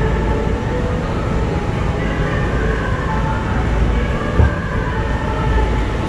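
Steady low rumble of a busy indoor passage, with faint distant voices and a single thump about four and a half seconds in.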